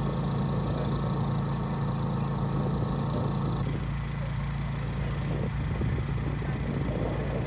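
Diesel engines of parked emergency vehicles idling: a steady low hum.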